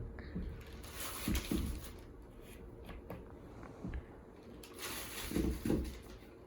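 Potatoes being handled and moved between containers: two bouts of rustling with a few soft knocks, about a second in and again around five seconds in.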